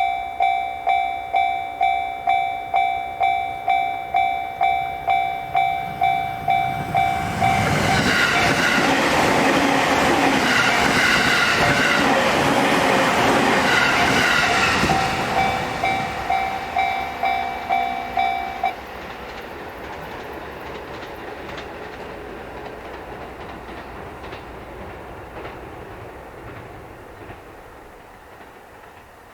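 Japanese level-crossing warning bell ringing 'kan-kan' at about two strikes a second. About eight seconds in, a JR Sobu Line train passes for about seven seconds with clacking wheels, drowning the bell. A few seconds after the train, the bell cuts off suddenly, the sign that the crossing is clearing.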